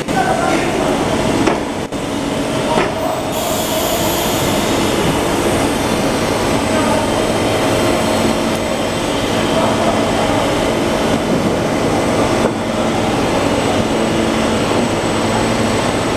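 JYT 550 butyl tape extruding line running: a loud, steady machine noise from its drives and rollers, with a constant low hum and a few brief knocks in the first three seconds.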